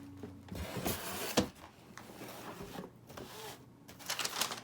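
Cardboard shoebox being opened: the lid scraping and sliding off in stretches of rustling, with one sharp knock about a second and a half in.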